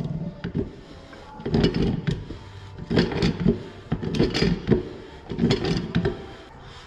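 Hammer blows on a threaded metal pipe fitting and valve, struck to break the fitting loose. The knocks come in about four clusters, roughly one every second or so.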